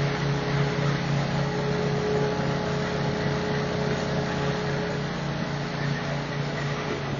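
Hammer mill with fan and cyclone, driven by a 19 hp Kohler engine, running steadily: a low pulsing engine hum with a steady whine above it and a rushing noise.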